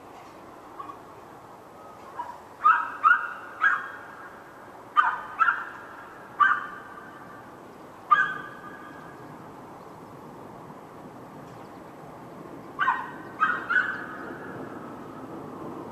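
A dog barking in short bursts of two or three barks, with a longer pause in the middle, over a faint steady background hum.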